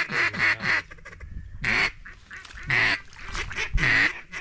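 Duck quacking: a fast run of quacks, about four a second, that ends just under a second in, then three longer, drawn-out quacks about a second apart.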